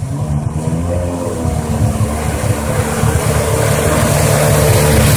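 Jet ski engine running at speed over the hiss of water spray, its pitch climbing and the sound growing louder as the craft closes in.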